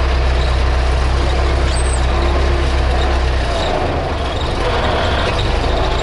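Old tractor's engine running loudly as heard from inside its cab while being driven. A strong deep drone holds steady, then drops away about three and a half seconds in.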